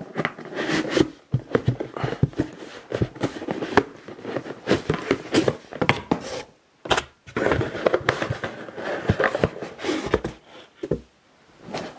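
Cardboard packaging being handled: smaller boxes slid out of a cardboard box and set down, making irregular rustling, scraping and small knocks.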